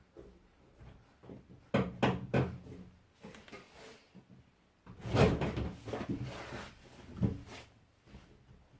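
Hard knocks and clunks from washing machine hose fittings and parts being handled and tried on a connection: a quick run of knocks about two seconds in, a longer scraping rattle around five seconds in, and a last single knock near the end.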